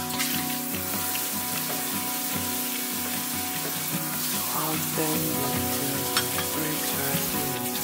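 Water running into a stainless kitchen sink, a steady hiss, under soft background music. A light tap comes about six seconds in.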